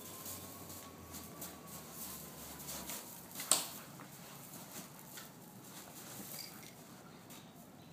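A dog's paws scuffling and scraping on gravel as it pounces about while playing, with one sharp click about three and a half seconds in.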